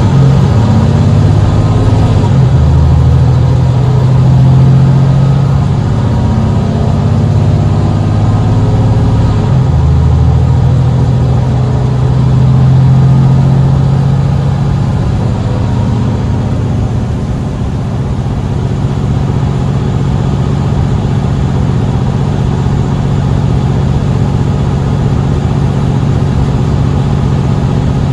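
Mercedes-Benz Citaro C2 city bus's diesel engine running hard under full-throttle kickdown acceleration. The engine note changes abruptly twice, about two seconds in and again near ten seconds. It then runs steadier and a little quieter through the second half.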